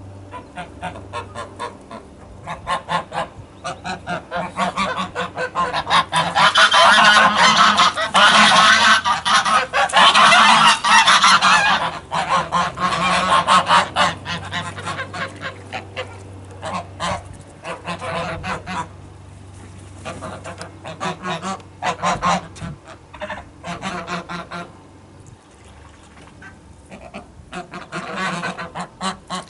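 Flock of domestic geese honking: a loud chorus of many overlapping calls about six to twelve seconds in, then scattered honks and another flurry near the end.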